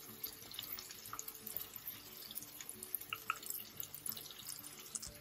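Mixed vegetables (capsicum, onion, beans, cabbage and tomato) sizzling faintly in oil in a kadai over a gas flame, a soft hiss with fine crackling. A couple of light clicks about three seconds in.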